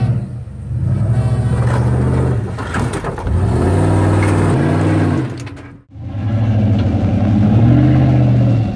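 Dodge Ram 1500 monster truck's Hemi V8 revving repeatedly, loud, its engine note rising and falling with each blip of the throttle. A little past halfway the sound drops out for a moment, then the revving resumes.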